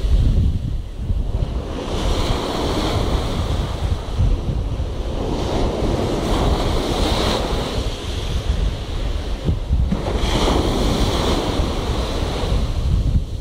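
Sea waves breaking and washing ashore, swelling and easing about three times, with wind buffeting the microphone.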